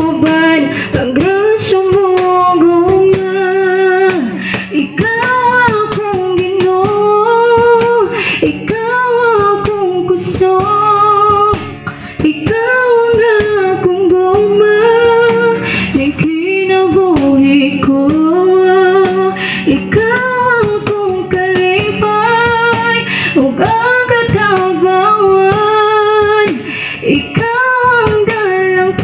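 A woman sings a slow Cebuano worship song. She is accompanied by a strummed nylon-string acoustic guitar and steady hand-struck beats on a cajon.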